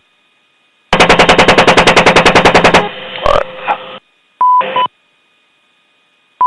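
A burst of about twenty rounds from an AH-64 Apache's 30 mm chain gun, firing evenly at about ten shots a second for roughly two seconds. It is followed by radio hiss and short radio beeps.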